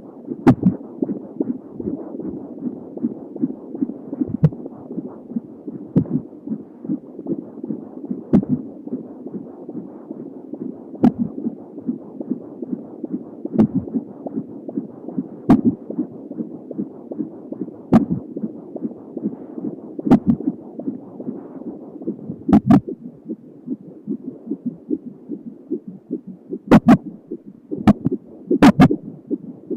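Fetal heartbeat at 31 weeks picked up by a handheld fetal Doppler, a fast rhythmic pulsing that runs steadily. Sharp knocks come through at a regular pace, about one every two seconds: the baby's hiccups.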